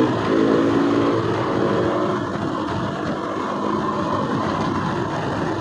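KTM RC motorcycle's single-cylinder engine running at road speed, with wind rushing over a helmet-mounted microphone. A steady engine note stands out in the first second or so, then the wind and road noise dominate.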